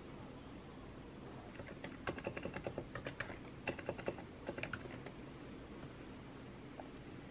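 Typing on a Realforce R2 keyboard with Topre electrostatic capacitive switches: a quick run of keystrokes starts about a second and a half in and stops around five seconds, followed by a couple of lone clicks near the end.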